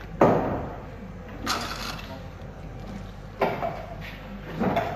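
Four sharp metal clanks and knocks from car body parts being handled during bodywork. The loudest comes right at the start, and one about a second and a half in carries a short scrape.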